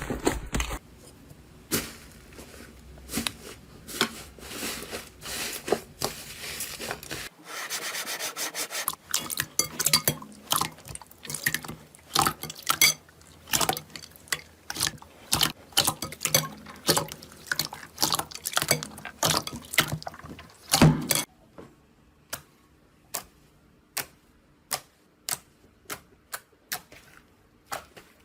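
Slime being squeezed and pressed by hand, making many sharp wet clicks and pops. Near the end the clicks thin out to a slower, even series of about one and a half a second.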